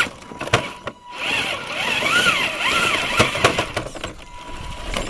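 RC rock crawler's electric motor and gear drivetrain whining, the pitch rising and falling several times as the throttle is worked, with a few sharp knocks of the tyres and chassis on rock.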